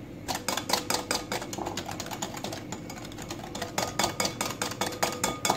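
A spoon stirring a thick yogurt spice paste in a glass bowl, clinking and scraping against the glass in quick strokes, several a second.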